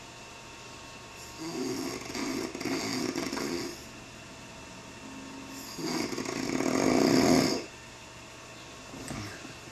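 A man snoring heavily: two long, rattling snores a few seconds apart, the second the loudest, then a short faint one near the end.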